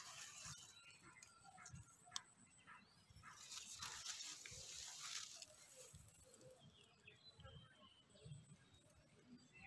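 Near silence: faint outdoor ambience with a brief rustle a few seconds in and faint bird chirps.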